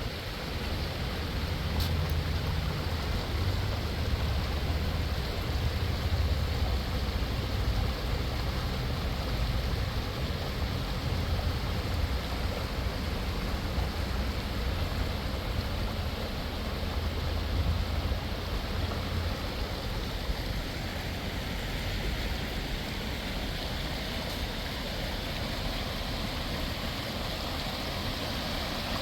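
Steady rush of flowing water from a river or hot-spring stream, with a low rumble underneath that drops away about two-thirds of the way through.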